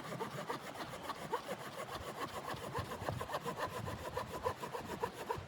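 Hand saw cutting wood with quick, evenly spaced rasping strokes.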